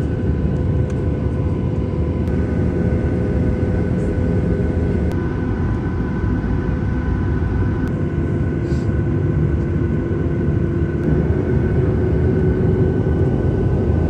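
Cabin noise of a Boeing 737-800 on the ground with its CFM56 engines running at idle: a steady, loud drone with a deep rumble and a few held hum tones.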